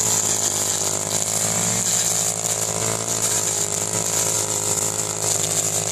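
Small engine of a rice-cutting machine running steadily at a constant speed.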